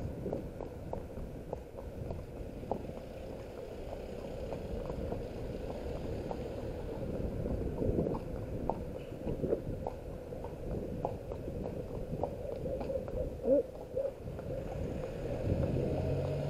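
Horse walking on a tarmac road, heard through a helmet camera's microphone: a steady low rumble of movement and handling noise with faint, irregular clicks of hooves.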